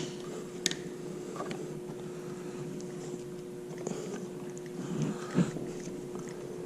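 Small metal parts and hand tools being handled while motorcycle handguard mounting hardware is fitted: a few light clicks and taps, with a duller knock about five seconds in, over a steady low hum.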